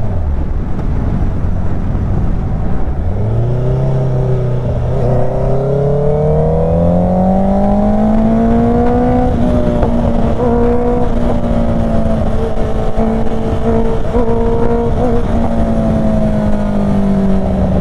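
Honda CBR sportbike's engine and exhaust heard from the saddle over wind noise, loud. The revs drop right at the start, climb steadily for about six seconds from about three seconds in, hold steady while cruising, then fall away near the end as the throttle closes.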